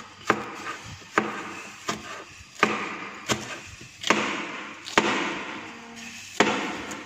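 Cleaver chopping spring onion on a plastic cutting board: about eight separate chops, roughly one a second, each a sharp knock of the blade on the board, some followed by a short scrape.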